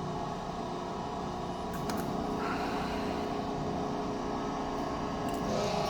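Electric hydraulic hose crimper's pump running steadily in auto mode as the dies close on a steel scaffolding pipe to swage it down. A couple of short clicks, a change in the machine's note about two and a half seconds in, and a louder hum near the end.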